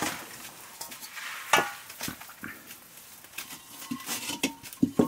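Scattered clinks and knocks of a metal plate being handled and set down on the floor, with small clicks of household handling; the sharpest knock comes about a second and a half in, and a cluster of knocks comes near the end.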